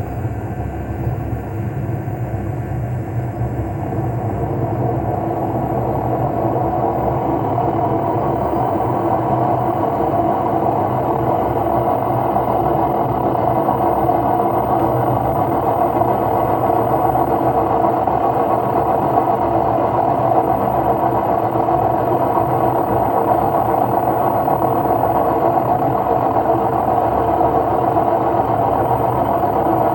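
LG washing machine drum spinning with a loud rumbling that builds over the first few seconds and then holds steady: the sign of worn drum bearings.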